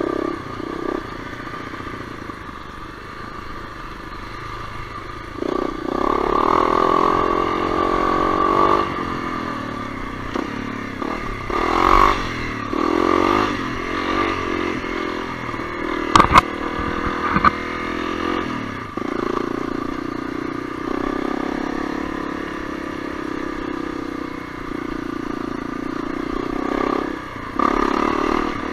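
Honda CRF250L's single-cylinder four-stroke engine running as the throttle opens and closes, its pitch rising and falling. A couple of sharp knocks come about sixteen seconds in.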